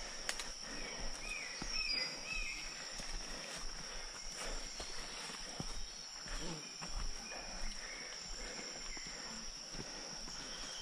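Steady high-pitched drone of forest insects, with a few short chirps about a second and a half in and faint footfalls on a dirt trail.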